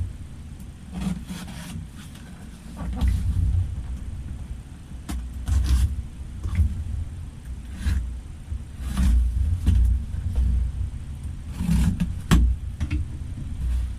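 Cardboard packaging being handled and opened by hand: irregular rustling, scraping and clicking, with low thumps from the box being moved.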